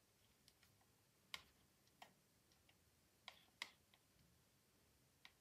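Near silence broken by a handful of faint, sharp clicks from a computer mouse, spaced irregularly about a second apart.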